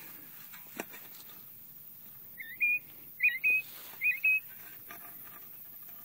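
Northern bobwhite quail whistling three two-note calls in quick succession, each a rising slurred note then a held high one. A single sharp knock sounds just before them.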